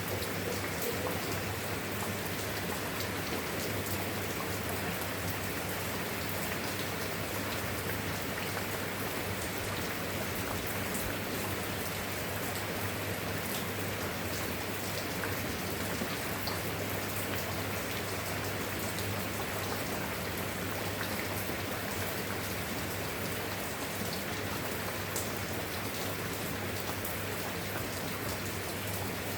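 Steady rain falling: an even hiss with scattered drops ticking, no thunder.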